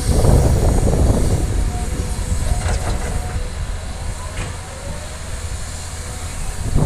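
Caterpillar excavator's diesel engine running under load, with a load of dirt pouring from the bucket into the steel bed of a dump truck, loudest in the first second or so. The engine rumble then eases as the empty bucket swings back.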